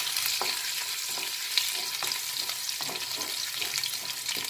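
Garlic, ginger and green chilli sizzling in hot oil in a metal kadhai, with a spatula scraping and stirring across the pan in repeated strokes, about one every half second to second.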